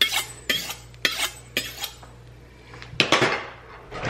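Knife blade being drawn along a steel honing rod, sharp scraping strokes about twice a second. After a short pause comes a louder, longer stroke about three seconds in, and one more near the end.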